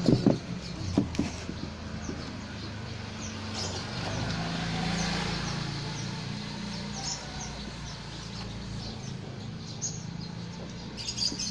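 A motor running steadily as a low hum, swelling and fading around the middle, with a few faint high chirps over it.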